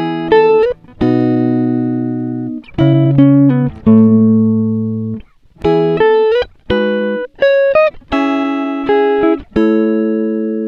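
Instrumental music: a melody of plucked, ringing notes in short phrases, each note struck and then fading out.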